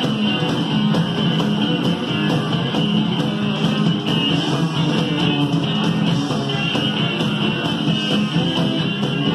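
Music played back from a cassette tape over hi-fi loudspeakers: a band recording with a stand-up bass playing steady low notes under the other instruments.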